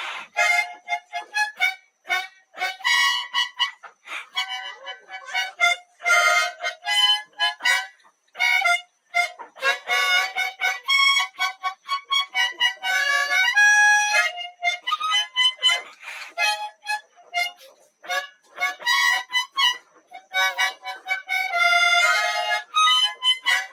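Harmonica played solo in short bursts of notes and chords, with brief gaps between phrases.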